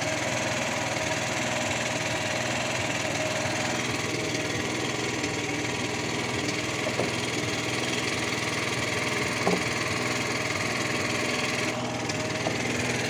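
Small generator engine running steadily at an even speed, with a couple of light knocks about seven and nine and a half seconds in.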